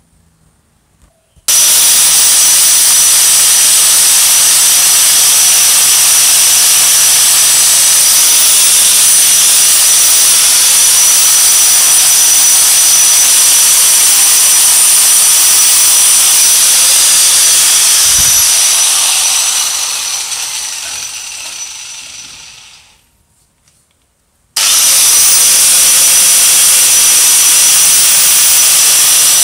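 Angle grinder with a wire cup brush running at speed against a rusty painted steel gear wheel, stripping rust and paint, with a steady high whine over the scrubbing noise. It starts about a second and a half in, winds down and falls silent near the 23-second mark, then starts again abruptly a second or so later.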